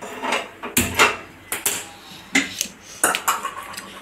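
Sharp metallic clicks and clanks, about ten spread through the four seconds: a steel kadai knocking on a gas stove's pan support, and the clicks of a hand-held spark lighter and a gas knob as the burner is lit.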